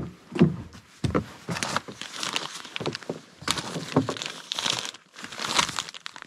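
Plastic bags and packaging crinkling and rustling as they are handled and rummaged through inside a truck cab, in a quick, uneven run of bursts. A loud thump right at the start.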